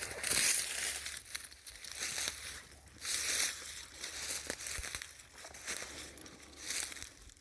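Footsteps through dry leaf litter on the forest floor: a crunching, crinkling step about once a second.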